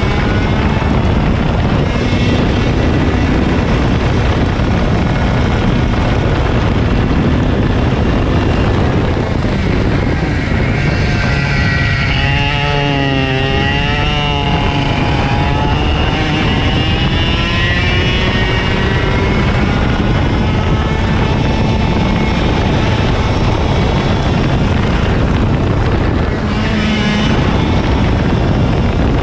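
KA100 two-stroke racing kart engine at full racing pace, its revs continuously rising and falling as it accelerates down straights and slows into corners.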